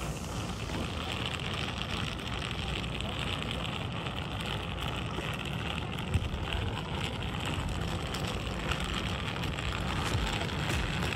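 Wheeled suitcases rolling over asphalt, a steady gritty rumble, with one small knock about six seconds in.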